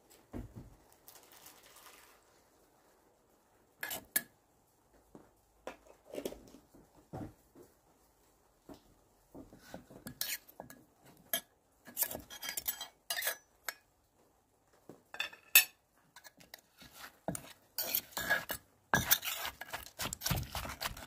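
Wooden pestle and metal spoon knocking and scraping against a clay mortar while mixing a pounded banana salad with shrimp. There are scattered clicks at first, growing into a quick, steady run of pounding strokes near the end.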